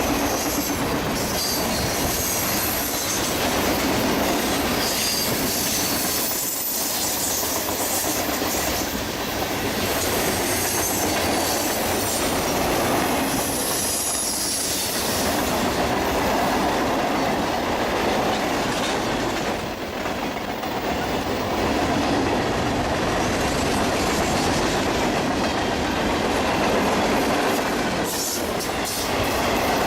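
Cars of a CSX mixed freight train rolling past, steadily loud: a constant rumble of wheels on rail with clicking over the rail joints and faint high wheel squeal.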